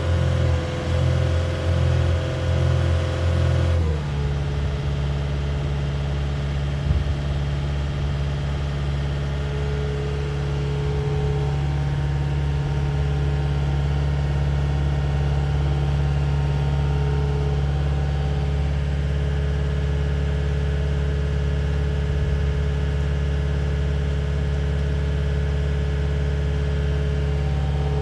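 CAT 259D loader's diesel engine running at higher, unsteady revs, then dropping to a lower speed about four seconds in and running steadily from there.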